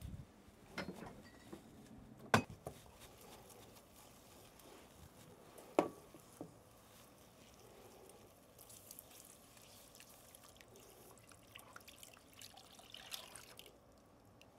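Milk being poured into a butter-flour roux in a stainless steel saucepan and stirred in with a wooden spoon: faint scraping and liquid sloshing, with two sharp clicks against the pan.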